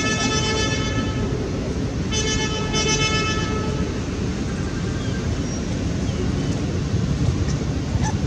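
Two long, steady toots of a vehicle horn, one at the very start and one about two seconds in, each lasting about a second and a half, over a steady low rumble.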